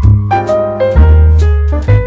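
Background music: a jazzy piano tune over bass and a light drum beat.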